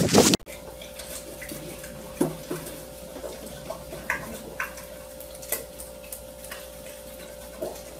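A spoon clinking and scraping against a small cup in light, scattered taps over a steady faint hum. It follows a brief loud burst of noise at the very start that cuts off abruptly.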